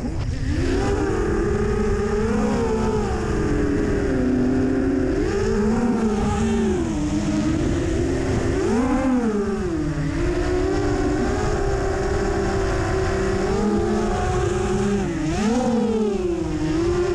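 Freestyle FPV quadcopter's brushless motors and propellers whining, the pitch swooping up and down with the throttle, with sharp rises about 2, 6, 9 and 15 seconds in, over a low rushing noise.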